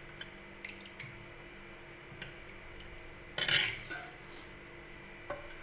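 Steel ladle stirring potato curry in a metal kadhai: a few light clinks of ladle on pan, and one louder, short clatter about three and a half seconds in.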